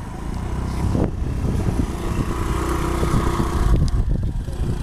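Honda PCX scooter's single-cylinder engine running as the scooter pulls away, its steady whine dropping out about three and a half seconds in.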